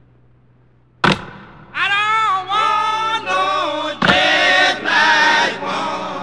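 A group of voices singing an a cappella-style song with long held notes in harmony, punctuated by a single heavy percussive hit about a second in and another about four seconds in. The first second is a quiet fading tail.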